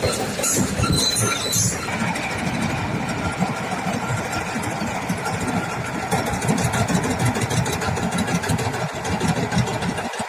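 Rice combine harvester's engine running steadily, with an added high hiss over the first two seconds.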